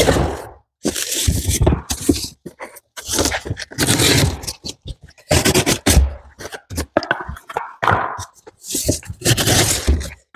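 Cardboard box and foam packing being handled and pulled about: irregular bursts of scraping and rustling with short pauses between them.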